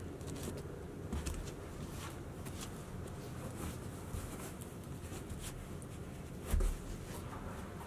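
Frye Billy leather cowboy boots being handled and set down on a carpeted floor: scattered light rustles and taps, with one dull thump about six and a half seconds in.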